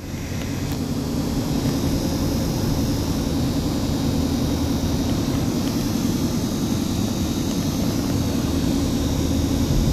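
A car running and driving, a steady engine and road rumble heard from inside the cabin, swelling as it pulls away in the first second and then holding level.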